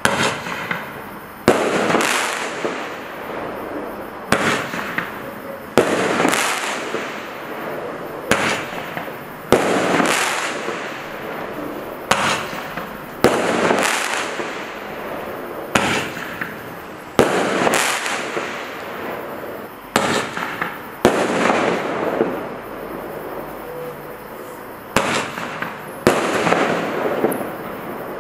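Standard Fireworks Magic Stars Roman candle firing shot after shot: each shot is two sharp bangs about a second apart, the star launching and then bursting into a silver chrysanthemum, followed by a fading hiss and crackle. A new shot comes about every four seconds.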